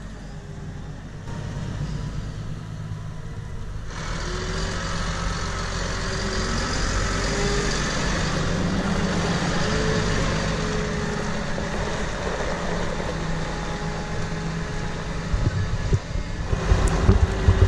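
Syn Trac system tractor's engine running as it drives, its pitch drifting up and down a little. Near the end, irregular loud low thumps come in over the engine.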